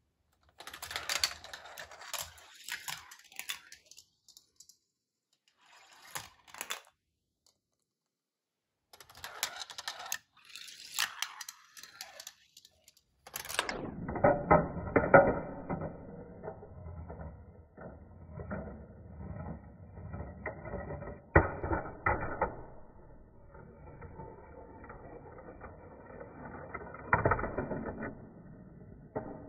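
Steel marbles rolling and clattering through a GraviTrax plastic marble run, clicking as they drop through tiles and run along metal rails. Over the first half the rattles come in bursts with short silences between. From about halfway the sound turns duller and steady: a rolling rumble with sharp clicks.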